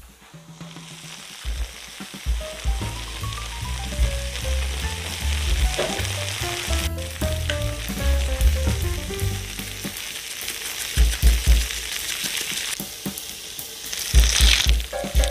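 Oven-baked tomato chicken pasta sizzling with a steady hiss in a hot glass baking dish, over light background music. Near the end a spatula cuts into the crunchy breadcrumb-and-Parmesan topping with a brief crackly scrape.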